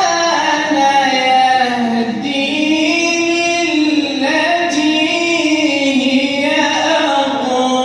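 Quran recitation in the melodic maqam style: a single voice chanting a long, ornamented phrase with sliding pitch.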